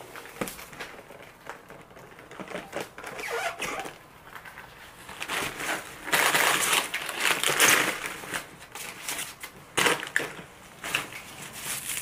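Irregular crinkling and rustling handling noises with scattered light clicks, loudest a little past the middle.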